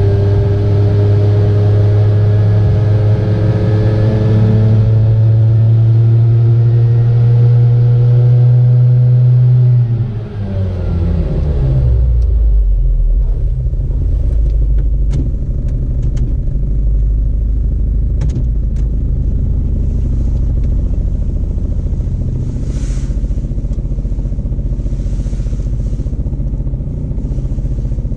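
Piaggio Ape 50's small two-stroke engine running at steady revs, its pitch creeping up slightly, then falling away about ten seconds in. It settles into a lower, rough running with scattered clicks, the weird engine sound the owner is showing.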